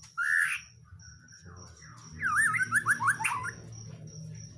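White-rumped shama (murai batu) singing: a short loud note just after the start, then about two seconds in a fast run of sweeping, rising and falling whistled notes.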